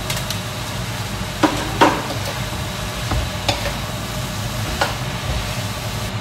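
Diced pumpkin tipped into a hot pan of frying dried beef and sausage, then stirred with a metal spoon: steady sizzling with a few sharp clicks of the spoon against the pan.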